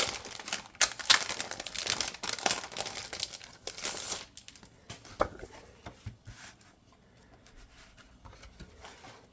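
Crinkly wrapping being torn and crumpled as a photo book is unwrapped, busy and dense for about the first four seconds, then a few lighter rustles and handling noises.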